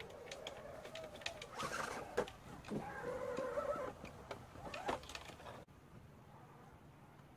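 Electric motor and gears of an RC scale crawler truck whining, rising and falling with the throttle as it climbs over bricks, with scattered clicks and knocks from the tyres and chassis on the brick. The sound cuts off suddenly about five and a half seconds in.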